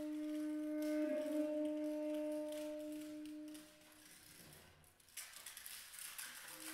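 Saxophone holding a long low note, its pitch shifting slightly about a second in, fading out after about three and a half seconds. After a quiet gap, a hiss comes in about five seconds in, and the saxophone note starts again near the end.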